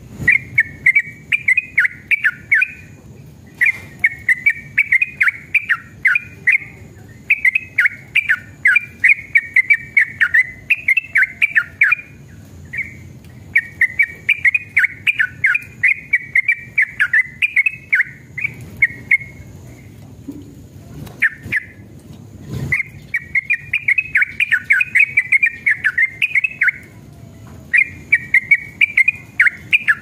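Yellow-vented bulbul (trucukan) singing in repeated bursts of quick, bubbling, chattering notes. Each burst lasts two or three seconds, with short pauses between. A single sharp click comes about two-thirds of the way through.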